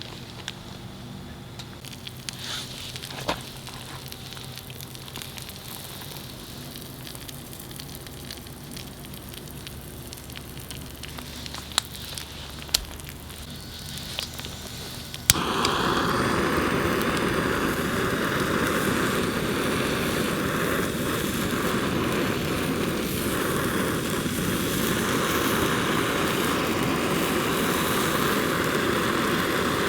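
A few light clicks of handling, then about halfway in a portable gas burner is lit with a sharp ignition click and runs with a steady, loud flame hiss.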